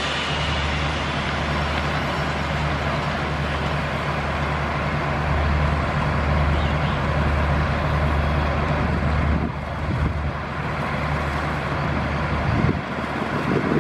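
Alsthom diesel-electric locomotive's diesel engine running with a steady low drone, over a general rumbling noise.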